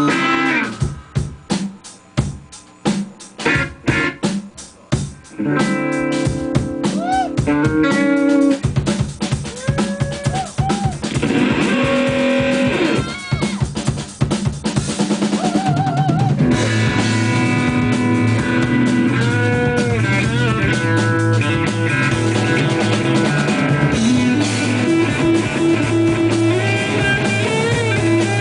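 A live band playing electric guitar and drum kit. It opens with stop-start accented hits and gaps, then settles into the full band playing continuously from about a third of the way in.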